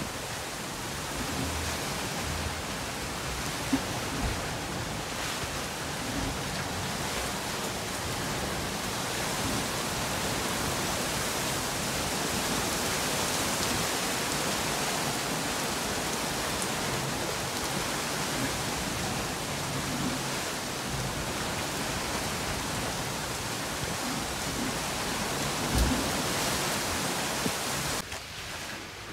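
Steady loud hiss of a rain squall on a sailing catamaran: driving rain and wind, with white water rushing past the hull and a couple of sharp thumps. Near the end it cuts to a much quieter wash of water and wind.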